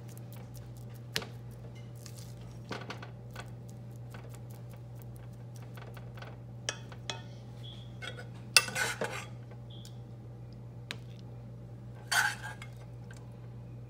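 A metal serving spoon clinking and scraping against a plate and pot while rice and green beans are served, a string of light clicks with a few louder clatters in the second half, over a steady low hum.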